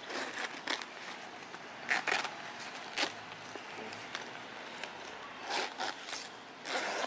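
A leather sling bag being handled: short scattered rustles, scrapes and zipper sounds as it is turned over and its zippers are worked.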